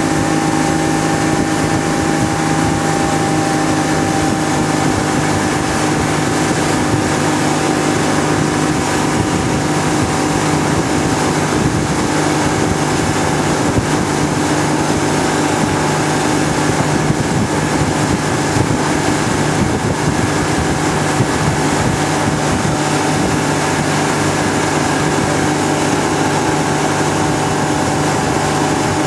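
Motorboat engine running steadily at towing speed, with wind noise on the microphone and the rush of the wake.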